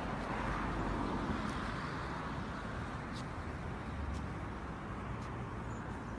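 Steady outdoor background noise with a low rumble and a few faint clicks.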